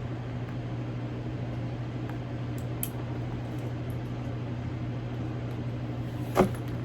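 Steady low hum of a fan or similar room machinery, with a few faint clicks of handling and one sharp tap about six seconds in.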